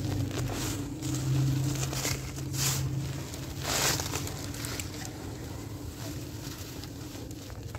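Dry cement chunks crumbled by hand, with grit and powder pouring onto a sheet in several short hissing bursts about a second apart, the loudest a little under four seconds in. A low steady hum sits underneath and fades a little after three seconds in.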